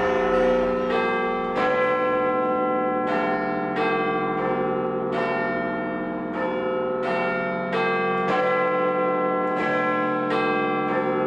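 Large tuned bells ringing a run of single strikes, a new note about every two-thirds of a second, each one ringing on into the next as the pitch steps between several notes.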